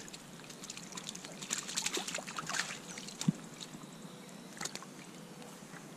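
Water splashing and dribbling as a rainbow trout is handled in a landing net held in creek water: a flurry of splashes from about one and a half to three seconds in, then a single sharper knock.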